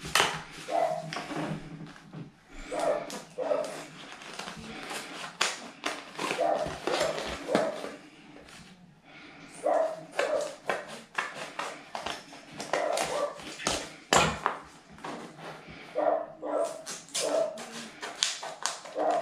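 A dog barking over and over in bouts, with a short lull about halfway through. Underneath, scissors snip through a sheet of Correx corrugated plastic.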